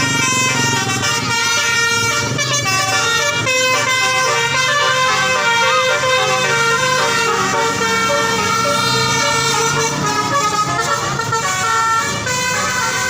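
Bus telolet horn (a basuri-type multi-note electric horn) playing a loud tune of held notes that step up and down in pitch, over a low steady rumble.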